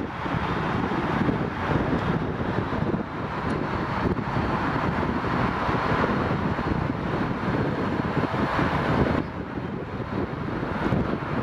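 Wind buffeting the microphone over the steady running of an Airbus A321-211's CFM56 jet engines at taxi power. A faint high whine runs through the middle.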